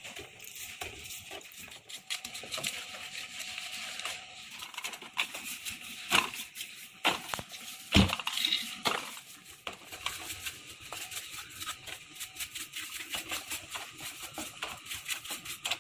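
Loose metal engine parts clinking and knocking together as they are handled, with many small clicks and one louder knock about eight seconds in.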